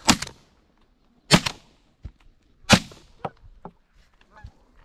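Three shotgun shots from a semi-automatic shotgun, about a second and a half apart, fired at geese passing overhead.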